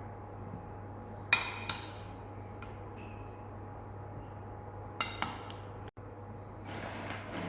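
Kitchen utensils clinking against dishes: two sharp clinks about a second in, two more about five seconds in, then a run of light clinking and rattling near the end, over a steady low hum.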